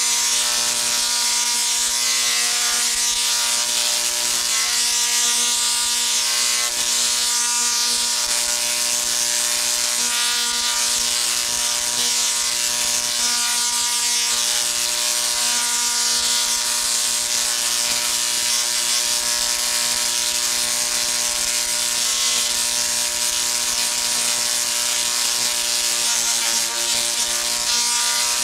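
Small rotary-spark-gap Tesla coil running continuously: a loud, steady, pitched buzz with a hissing crackle of sparks. Streamers fly from its two spaced spun-aluminium toroids, and a power arc bridges the gap between them.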